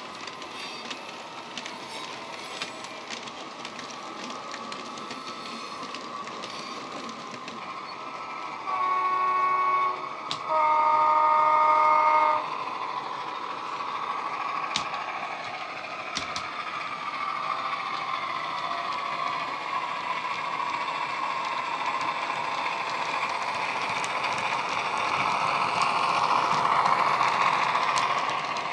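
Dapol Class 68 model diesel's DCC sound (LokSound decoder with the JMC sound file, played through a pair of megabass speakers): the diesel engine runs steadily, and two horn blasts sound about nine seconds in, the second lower and longer. Near the end the engine grows louder as the loco passes close.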